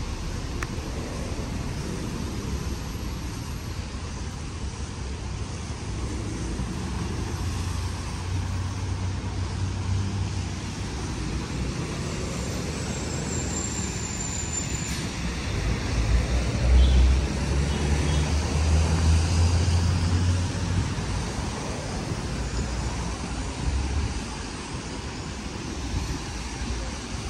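Road traffic on wet streets: a steady hiss with the low rumble of vehicles passing, swelling twice and loudest about two-thirds of the way through.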